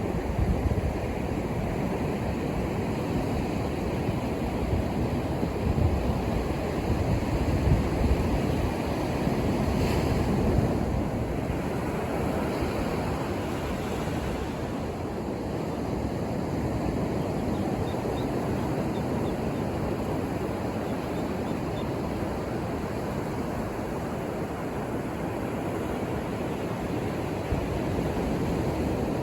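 Ocean surf washing onto a beach: a steady rush of breaking waves that swells a little and eases, with some wind rumble on the microphone.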